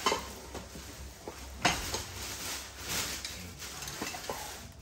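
Thin plastic shopping bag rustling and crinkling as it is handled and pulled open, with a sharper crackle about a second and a half in.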